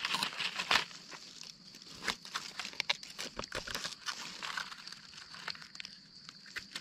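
Dry leaf litter and twigs crackling and rustling in many irregular sharp clicks as mushrooms are picked from the forest floor.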